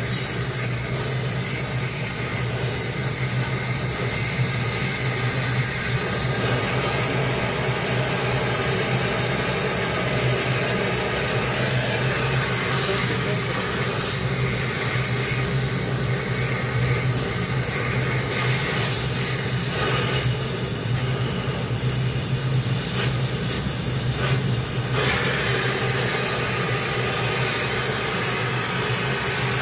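Gas welding torch flame hissing steadily as it heats and fuses the end of a steel pipe with filler rod, over a constant low hum.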